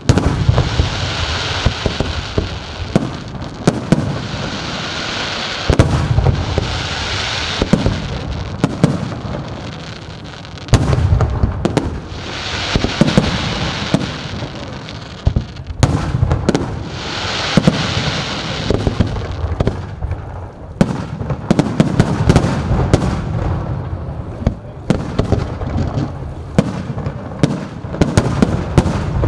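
Fireworks display: aerial shells bursting in rapid succession, a dense run of booms and sharp bangs, with several stretches of hissing crackle lasting a couple of seconds each.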